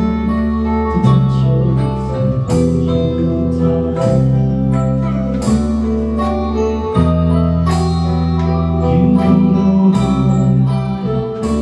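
A small band rehearsing an instrumental: an electric bass guitar and a guitar playing with a keyboard, the chords and bass notes changing about every second and a half.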